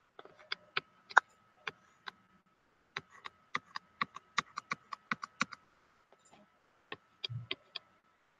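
Sharp clicks and taps from drawing on a computer with a pen or pointing device, irregular at first, then a quick run of about six a second in the middle, over a faint steady high whine. A short soft low thump comes near the end.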